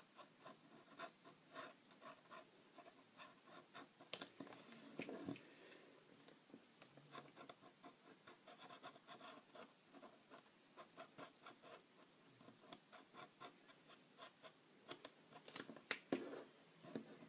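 Black felt-tip marker scratching faintly on a small card in many short, quick sketching strokes, with a few sharper taps.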